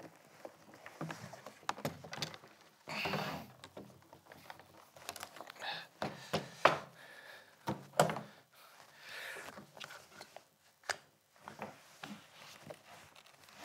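Rummaging through a leather suitcase: irregular knocks and thunks of objects being handled and set down, with short bursts of rustling from bags and fabric.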